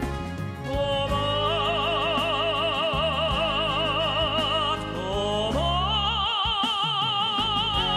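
Operatic tenor voice holding a long note with wide vibrato over orchestral accompaniment. About five seconds in it slides up to a higher held note.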